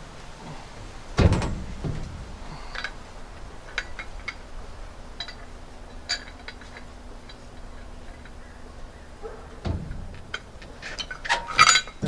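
Heavy thuds from a large log and its rigging being worked on a sawmill bed: one about a second in and another near the end, with scattered light clicks and clinks between them and a clatter just before the end.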